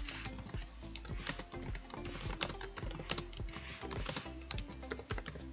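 Typing on a computer keyboard: an uneven run of key clicks, over background music.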